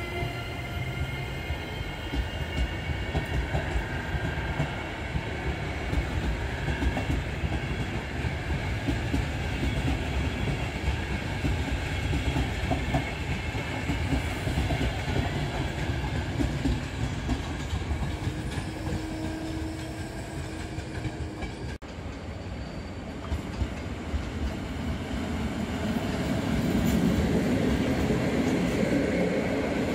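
Passenger train coaches rolling past at a station, a continuous rumble of wheels on rails. About three-quarters of the way through there is an abrupt break, and another passenger train passes, growing louder toward the end as its coaches run close by.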